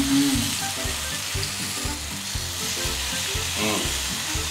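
Marinated chicken pieces frying in oil in a nonstick pan, a steady sizzle.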